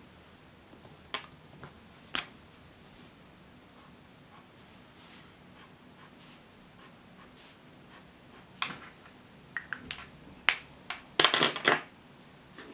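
Pens and a highlighter handled on a desk: scattered sharp clicks and taps as they are picked up and put down, then a short, dense scratchy flurry of pen on notebook paper near the end.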